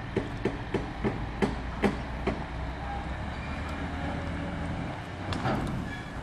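Funfair ride trailer being towed off by a lorry: a run of knocks and clanks from the rolling trailer, about two or three a second for the first couple of seconds, over the lorry's low engine drone. The drone fades out about five seconds in, and a short cluster of clanks follows.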